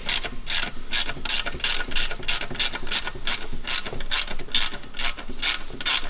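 Hand ratchet wrench clicking in a steady rhythm of about four clicks a second as a bolt at the exhaust flex pipe is worked.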